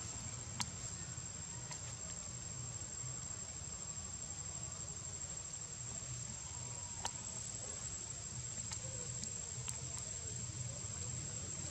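Insects calling in one steady, high-pitched unbroken tone, over a low rumble, with a few short clicks.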